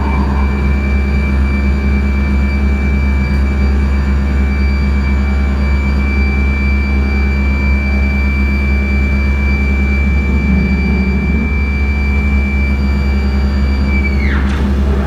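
Experimental noise music: a dense, loud low drone and rumble under a steady high whistling tone, which drops sharply in pitch near the end, followed by more quick falling and rising sweeps.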